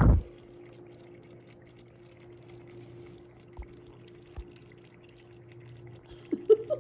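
Dry ice bubbling in water, a scatter of small pops and drips over a steady low hum, opening with a short loud rush and with a couple of low knocks along the way.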